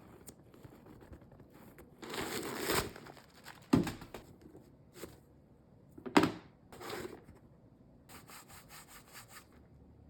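Shoebox and sneakers being handled during an unboxing: rubbing and scraping of cardboard or paper, with two sharp knocks in the middle, then a quick run of about eight light rubbing strokes near the end.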